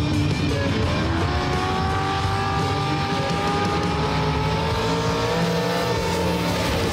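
Mud drag racing engines revving up at the launch about a second in, holding at high revs as the vehicles run down the dirt track, and dropping off near the end, with rock music underneath.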